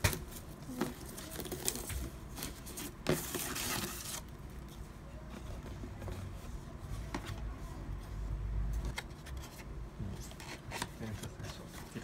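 A ribbon being pulled off a paperboard cake box and the box opened by hand: rustling, scraping and light taps of cardboard flaps. One longer rustle comes about three seconds in.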